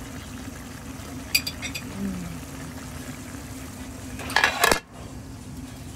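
Metal utensil clinking and scraping against a cooking pan: a few light clinks about a second in, then a louder burst of clattering near the end that stops abruptly, over a steady low hum.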